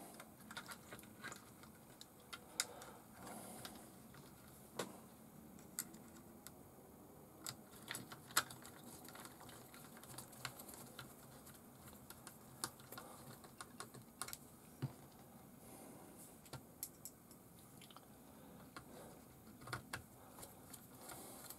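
Faint, irregular clicks and light taps of a small screwdriver and screws as a speed controller board is screwed down onto a plastic RC buggy chassis.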